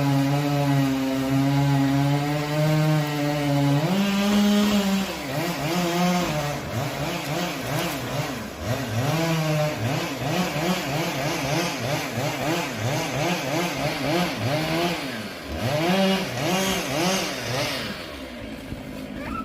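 Chainsaw engine running steadily for about four seconds, then revving up and down over and over, its pitch rising and falling roughly once a second. It eases off near the end.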